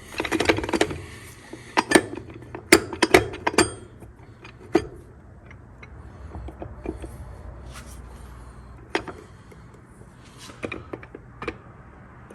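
Metal clutch plates of a TH400 automatic transmission clinking and knocking as they are handled, a quick run of clatters in the first few seconds, then a few single clicks.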